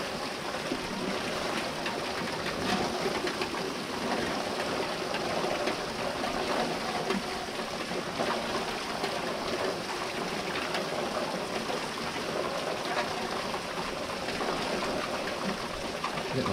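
Heavy rain, with water pouring in streams off the edge of a house roof: a steady, dense patter.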